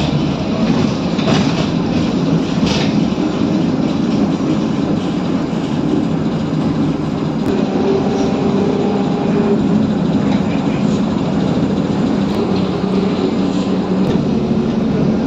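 Cabin of a VMZ-5298.01 trolleybus driving along: a steady rumble of tyres and body, with a couple of knocks in the first few seconds and a faint whine from about halfway through.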